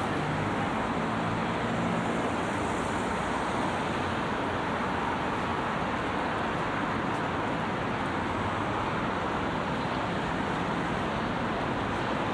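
Steady road traffic on a busy multi-lane city road: cars and vans passing in a continuous rush of tyre and engine noise, with a vehicle's low engine hum in the first couple of seconds.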